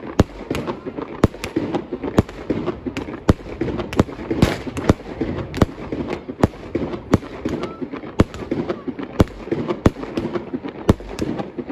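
Aerial fireworks firing in a rapid barrage close by: sharp bangs about two to three a second, with continuous crackling and rumbling between them.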